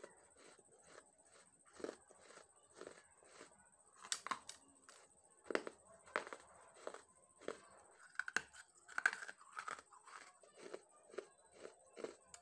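Close-miked biting and chewing of dry clay chunks: sharp crunches and crumbling, about two a second, with a few louder bites in the middle.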